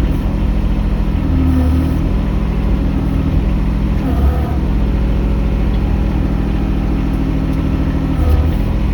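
Mini excavator's diesel engine running steadily under work, its note dipping and shifting briefly about four seconds in and again near the end as the load changes.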